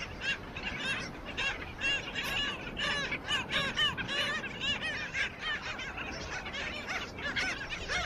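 Black skimmer colony calling: many short barking calls overlapping, several a second, as adults fly low over a person handling a chick among the nests.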